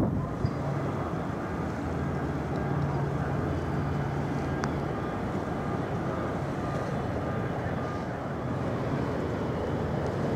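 Low, steady engine drone of a passing Wightlink car ferry, heard across open water, with a low hum that is clearest a few seconds in.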